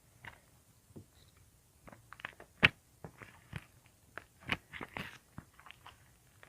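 Iceberg slime's hardened crust crackling and crunching as it is handled, a string of irregular sharp crackles with the loudest about two and a half seconds in.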